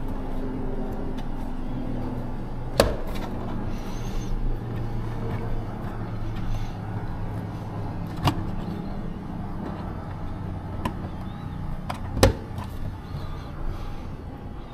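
Clicks and knocks of plastic trim pieces and a cable adapter being handled and fitted, three of them sharp and louder than the rest, over a steady low hum.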